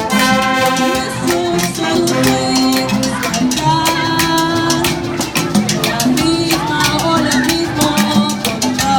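Jazz band playing a Latin-rhythm arrangement, with a steady shaker rhythm over sustained instrumental lines.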